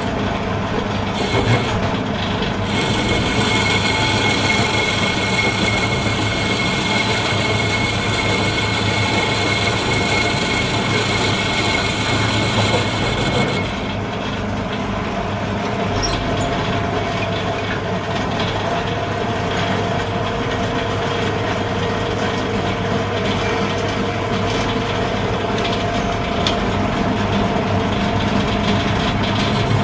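A machine running steadily, engine-like, with a constant hum and whine; its tone changes about fourteen seconds in.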